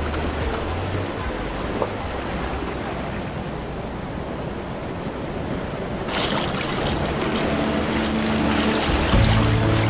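Sea surf washing onto a sandy beach: a steady rushing hiss of breaking waves that grows louder in the second half. Soft background music comes in near the end.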